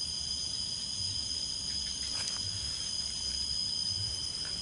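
Insects chirring steadily in several high, unbroken tones, over a low rumble.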